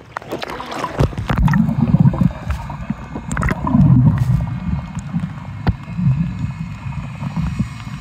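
Water splashing at the sea surface for about the first second, then muffled underwater sound: an uneven low rumble and gurgling of moving water, with a few scattered clicks.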